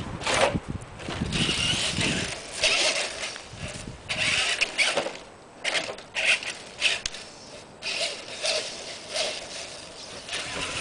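Traxxas E-Maxx electric RC monster truck driving, its motors whining in repeated short, uneven bursts as the throttle is worked on and off.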